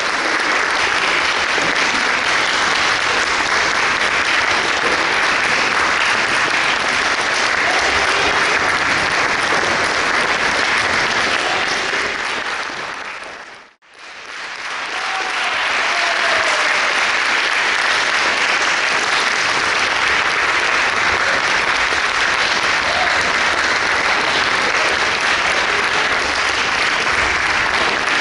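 Audience applauding steadily. The applause fades out about halfway through and fades back in.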